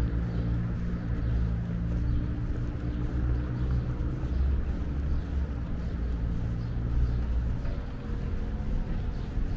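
Street traffic, with a motor vehicle's engine running close by as a steady low hum over road noise.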